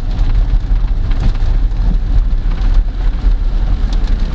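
Steady low rumble of a car being driven on a wet road, heard from inside the cabin, with an even hiss of rain and wet tyres over it.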